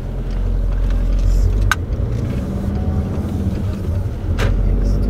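Car engine and road rumble heard from inside the cabin, swelling during the first second or so as the car drives on. Two short sharp clicks stand out, one just under two seconds in and one near four and a half seconds.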